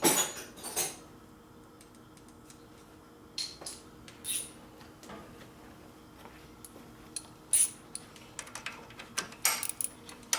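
Metal hand tools clinking: sockets and wrenches handled and set down, a sharp clank at the start, a few scattered clicks, then a quick run of clinks near the end.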